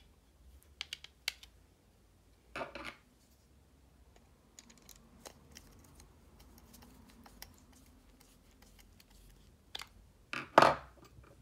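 Small metal faucet parts and a screwdriver clicking and tapping as a kitchen faucet's spray head is handled and screwed back together, with a louder clatter near the end.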